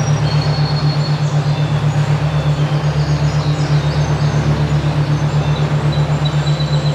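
A low humming tone throbbing evenly about five times a second, typical of a binaural-beat track, with birds chirping in short high notes above it.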